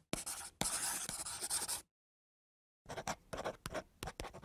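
Scratchy strokes of writing on paper, a handwriting sound effect. The strokes run quickly for about two seconds, stop for about a second, then return as shorter, sparser strokes.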